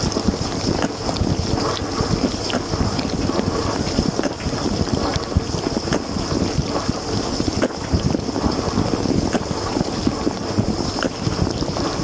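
Water spraying and splashing inside a running LG dishwasher during the wash: jets from the spray arms drum irregularly on the dishes, racks and camera, over a steady high hiss.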